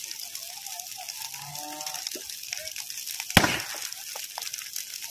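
Brushwood bonfire crackling with many small sharp pops, and one much louder bang a little over three seconds in.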